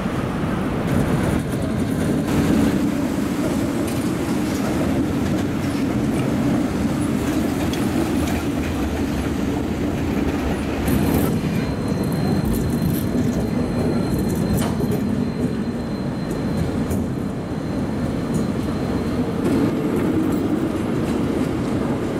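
Trams running on street track, a continuous rumble with scattered clicks of the wheels over the rails. A thin high tone sounds for a few seconds around the middle.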